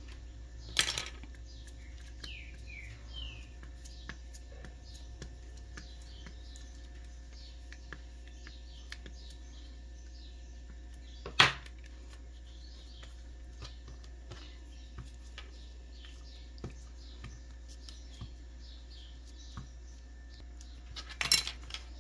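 Quiet tabletop handwork: a few sharp taps, the loudest about halfway through, and small ticks over a steady electrical hum, with faint bird chirps in the background.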